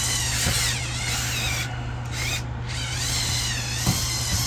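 Small electric motors of a motorised Mould King 17010 building-block dump truck whining as it drives and climbs, the whine wavering in pitch over a steady low hum. The whine drops out briefly twice near the middle.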